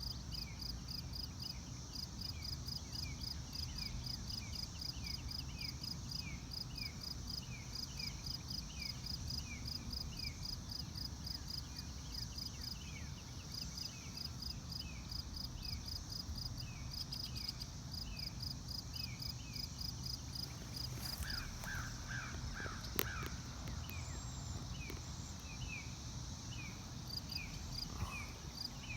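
Outdoor field ambience: a steady chorus of rhythmic chirping calls repeating several times a second, over a low rumble. A short run of about five separate calls comes about two-thirds of the way in, and a single sharp click follows soon after.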